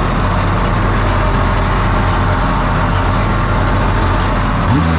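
Jet boat engine running steadily, then revved briefly near the end, its pitch rising and falling back.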